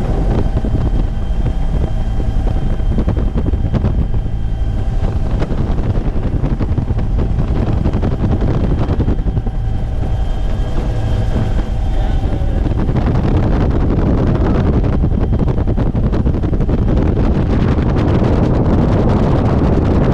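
Bell UH-1 Huey helicopter in flight: its turbine engine and rotor running steadily, with a faint whine over a heavy rumble and wind buffeting the microphone.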